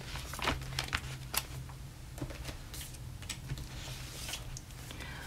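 Handling noise from a large paper colouring book: scattered short paper rustles, taps and soft knocks as the book is closed and moved off the table, over a low steady hum.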